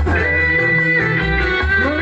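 Live band music in an instrumental break: a guitar melody over a pulsing bass, with no singing.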